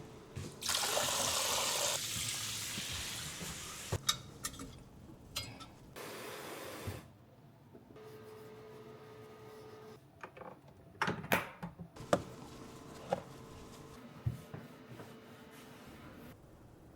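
Water running for a few seconds, starting strongly and fading, then scattered clinks and knocks of kitchenware being handled, with a faint steady hum in the background.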